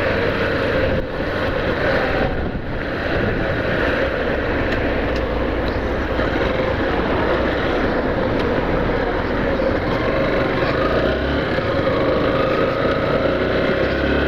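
Yamaha Factor 150 motorcycle's single-cylinder engine running steadily under way, with a continuous rush of wind and road noise.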